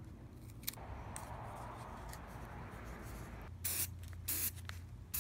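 Krylon aerosol spray paint can giving short bursts of spray, two in quick succession in the second half and a third starting at the very end.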